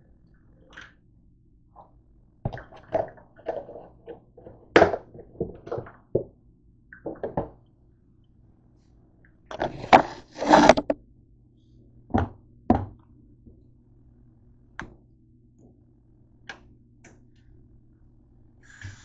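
Irregular knocks, thunks and clatters of kitchen things being handled and set down on a counter near the sink, with a louder burst of handling noise about ten seconds in as the camera is moved.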